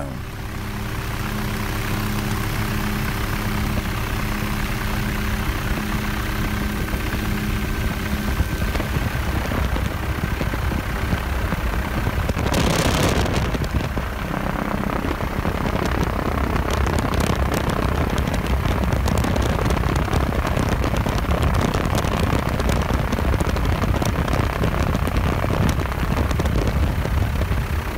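Helicopter in flight: steady rotor and engine noise mixed with wind rush, with a brief louder gust of noise about halfway through.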